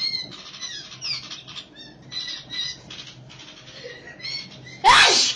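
Bulbuls fighting: a quick run of short chirps and twittering calls with wing flutters, then one loud, harsh burst near the end.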